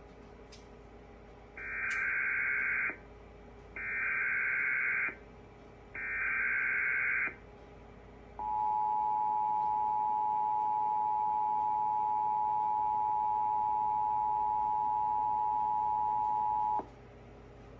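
Emergency Alert System Required Monthly Test: three short, identical modem-like data bursts of the SAME header, about a second apart, then the two-tone attention signal, a steady two-note tone held about eight seconds before it cuts off. Together they announce the alert that the spoken test message follows.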